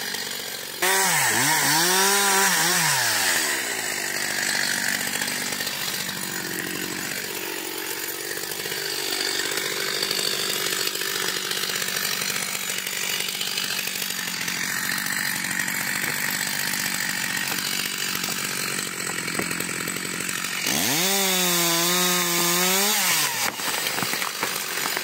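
Chainsaw revving up and down, then running under load through a long felling cut at the base of a standing tree. Near the end it revs high and steady for about two seconds before dropping off as the cut is finished.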